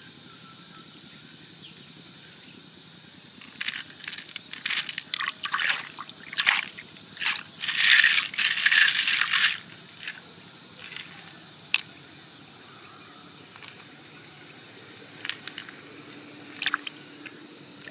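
Hands stirring a shell heaped with wet pearls: the pearls click and rattle against each other and the shell with a wet squish. The clicking comes in clusters, loudest about eight seconds in, then thins to a few scattered clicks.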